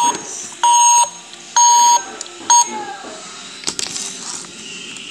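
Electronic beeps from a KiB toy robot: three loud beeps about a second apart, the last one short, then a few clicks and rustles of the plastic toy being handled.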